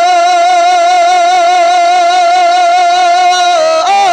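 A man's voice singing a naat through a microphone, holding one long note with a slight waver, then breaking into quick turns of pitch near the end.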